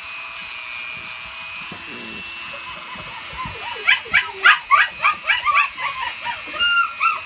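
A young puppy whining and yelping in a fast string of short, high, rising-and-falling cries, about three or four a second, starting about three seconds in, while its nails are ground. Before that, the rotary nail grinder's steady electric whine is heard.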